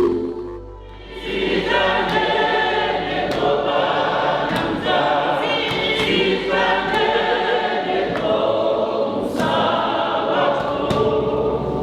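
A choir singing in phrases, many voices together, coming in about a second in after a brief lull.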